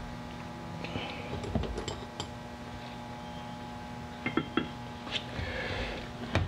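Scattered light metal clinks and knocks as hand tools and winch parts are picked up and set down on a workbench, over a steady low hum.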